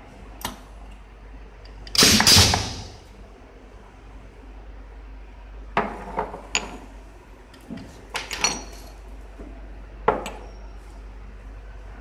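Pneumatic bottle crimping and collar pressing machine at work on glass perfume bottles: a loud clunk with a rush of air about two seconds in, trailing off over most of a second, then several sharp clicks, knocks and glass clinks.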